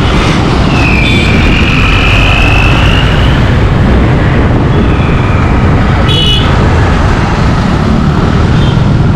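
Motorcycle riding through traffic, with steady wind rush and engine and road noise on the rider's microphone. A high steady tone sounds for about two seconds early on, then again more faintly around the middle, and there is a short sharper high tone about six seconds in.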